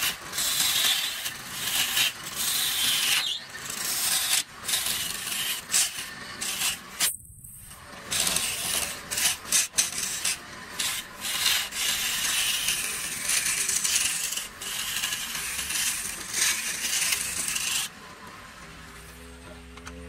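A handful of wood shavings pressed against a workpiece spinning on a wood lathe, burnishing it with a loud, harsh rubbing hiss that swells and eases as the hand moves. It drops out briefly about seven seconds in and stops a couple of seconds before the end, leaving a quieter, steady low hum.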